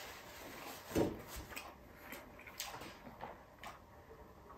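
Eating sounds close to the microphone from a person eating rice and beef stew by hand: a soft thump about a second in, then a string of short clicks and smacks.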